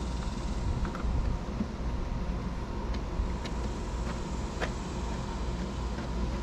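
A few faint sharp clicks as the step drawer's side clips are pressed into place by hand, over a steady low outdoor rumble.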